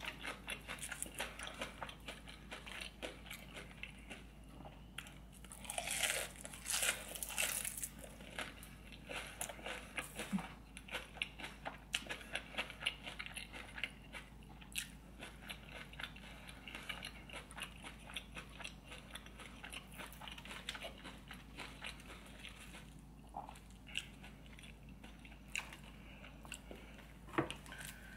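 Eating fried seafood: a run of crunchy bites and chewing, with many small crisp crunches and a louder cluster of bites about six to eight seconds in.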